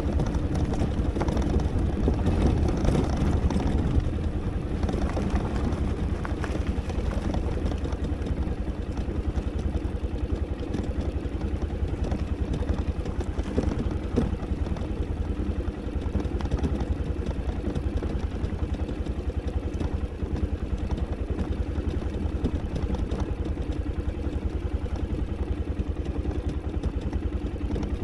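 Italika V200 motorcycle engine running steadily, with a strong low rumble beneath it.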